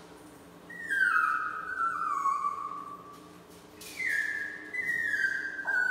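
A small long-haired Chihuahua howling: two long, high calls that slide downward in pitch in steps, the first about a second in and the second near the end.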